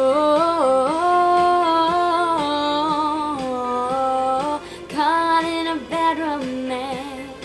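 A young woman singing long, held wordless vowel notes that step up and down in pitch, with a short break past the middle.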